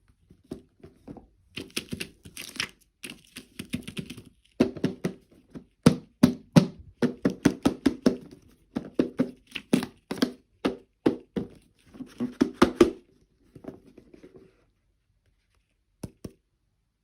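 Toy packaging being handled and opened by hand: crinkling and tearing at first, then a quick irregular run of hollow plastic knocks and clicks that stops about two seconds before the end, followed by two last clicks.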